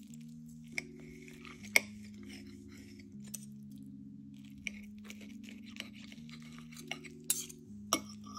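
A knife and fork clinking and scraping on a ceramic plate while cutting through a baked pork chop, with about eight sharp clinks, the loudest just under two seconds in. Soft background music of sustained low notes runs underneath.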